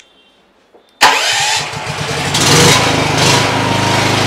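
Senci welder-generator's 420 cc engine starting by remote: after about a second of quiet it cranks and catches at once, picks up speed over the next two seconds, then settles into a steady run.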